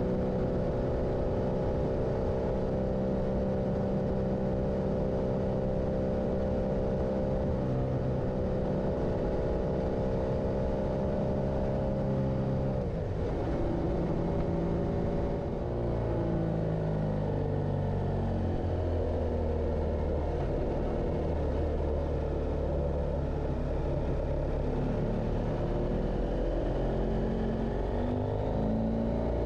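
Motorcycle engine running under way, holding a steady pitch, then dropping sharply about 13 seconds in. It picks up again with the pitch rising and shifting as the bike accelerates.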